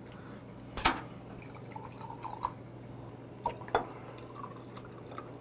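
Beer poured from a glass bottle into a drinking glass, a soft gurgling trickle. A sharp clink of glass about a second in and two more in quick succession later.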